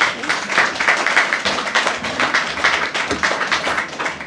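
Audience applauding, a dense run of many hands clapping.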